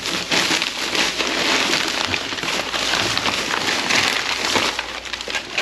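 Plastic garbage bag and food packaging rustling and crinkling steadily as gloved hands dig through them.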